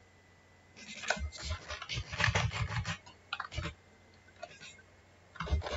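Keystrokes on a computer keyboard: a quick run of taps starting about a second in, then two short clusters of taps, one in the middle and one near the end.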